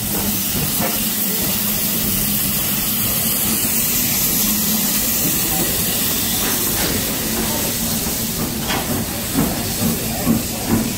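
Steam locomotive letting off steam: a steady hiss that holds at the same level.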